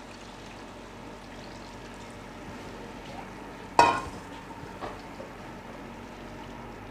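Fish broth simmering in a wide pan on a gas hob, a steady low hiss. About four seconds in, a metal saucepan is set down with a sharp clank, followed by a few light knocks of a spoon in the pan.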